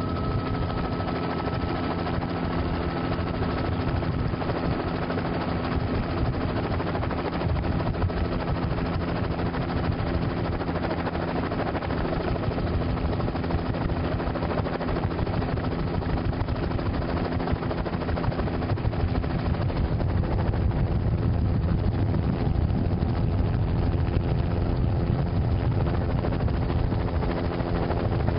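Helicopter running steadily, heard from on board: a constant drone of several steady tones over a low rumble, growing a little louder about two-thirds of the way in.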